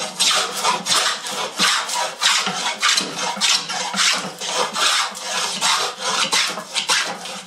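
Wooden-bodied rebate plane cutting a rebate along the edge of a board: quick back-and-forth hissing strokes of the iron through the wood, about two a second.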